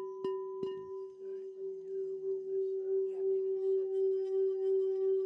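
Singing bowl tapped twice in the first second, then made to sing: its single tone swells and holds steady with a slow pulsing wobble.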